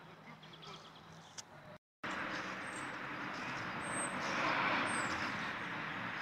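Steady outdoor rushing noise that swells about halfway through, with a few short high bird chirps over it. The sound cuts out completely for a moment near the start.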